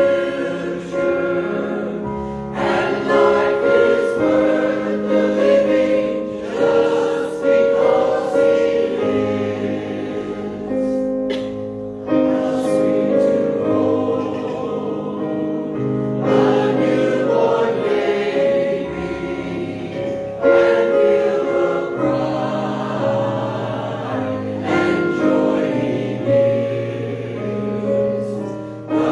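Church congregation singing a hymn in unison with instrumental accompaniment, phrases moving through slow held chords.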